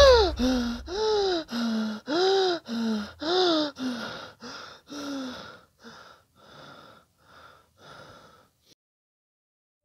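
A man panting and gasping in fright, with rapid voiced breaths about two a second. The breaths are loud at first, then slow and fade out before the end.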